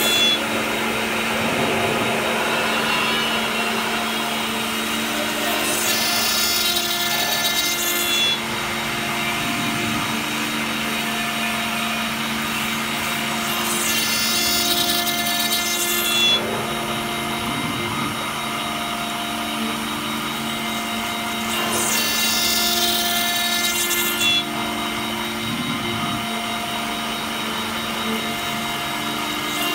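CNC router spindle milling a brass plate with a small end mill: a steady machine hum under a harsher, brighter cutting noise that swells three times, each for about two seconds, roughly eight seconds apart.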